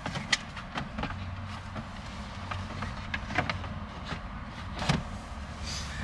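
Plastic steering column trim being handled and fitted back together: a scatter of light clicks and knocks of hard plastic, over a low steady hum.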